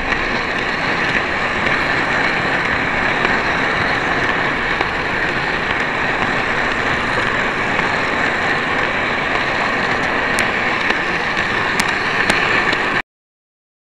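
Steady rushing whir of a small model vehicle running along a miniature layout, heard from a camera riding on it, with a few sharp clicks near the end. It cuts off abruptly about a second before the end.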